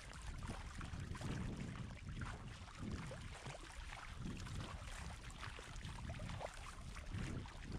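Water rushing and splashing along the bow of an Itiwit X500 inflatable kayak under paddle. The water noise swells roughly once a second with the paddle strokes.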